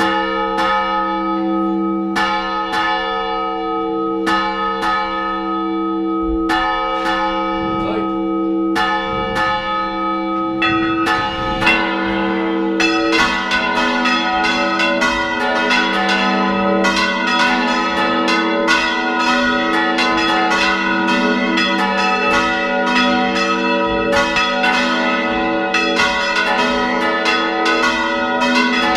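Church tower bells rung by hand and swung. At first single strikes about every two seconds, each left to ring on; then, about eleven seconds in, more bells join in a dense peal of overlapping strikes that keeps going.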